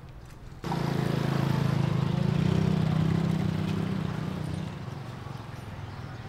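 A small engine running close by, a steady low hum that cuts in suddenly about half a second in and drops away after about four seconds.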